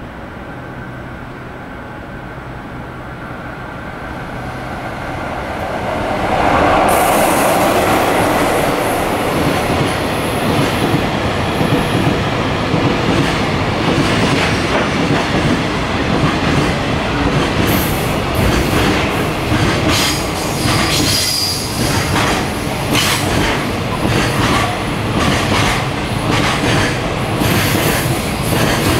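High-speed container freight train running through a station at speed. Its noise builds over the first six seconds as it approaches, then becomes a loud, steady wheel-on-rail rumble as the container wagons pass. From about two-thirds of the way in, a rhythmic clatter of wheels over rail joints joins it.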